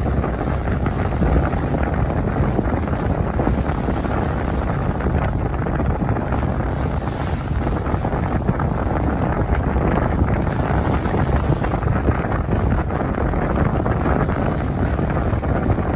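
Wind buffeting the microphone aboard a car ferry under way: a loud, steady rush, heaviest in the low end.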